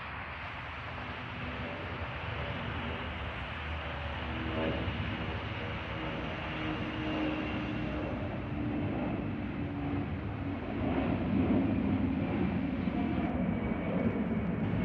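Jet airliner climbing out after takeoff, its engine noise growing steadily louder as it passes overhead, with a high whine slowly falling in pitch.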